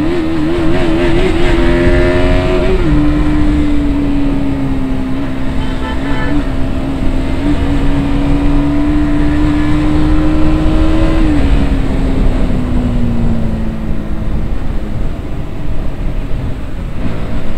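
KTM RC 200's single-cylinder engine running at a steady cruise, one steady drone that wavers in pitch for the first few seconds and sinks slowly as the throttle eases about two thirds of the way through, with wind rushing over the microphone throughout.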